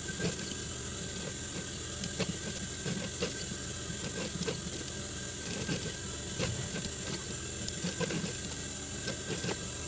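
Industrial sewing machine stitching down an appliqué in short, irregular runs: a steady low motor hum with scattered clicks from the needle mechanism.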